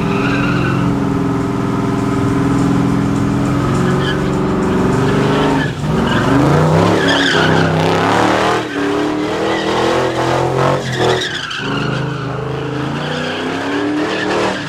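Car engine held near the top of its revs during a burnout, the revs bouncing up and down with several brief dips, over steady tyre squeal from the spinning rear tyres.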